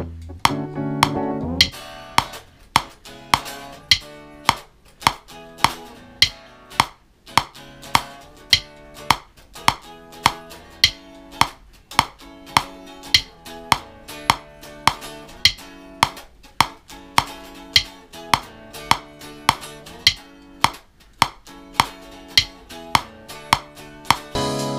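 Electric guitar playing along to a steady metronome click track, just under two clicks a second. The first couple of seconds are louder and fuller, with a bass line under the guitar.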